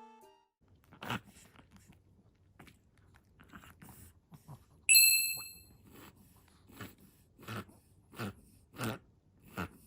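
Small dog reverse sneezing: a run of sharp snorting inhalations, roughly three every two seconds, in the second half, with a single snort about a second in. A loud electronic chime rings once about halfway through.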